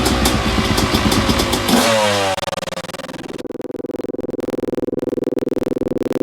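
Dirt bike engine running loud and revving, its pitch dropping away about two seconds in. Electronic music with a steady pulse takes over from there.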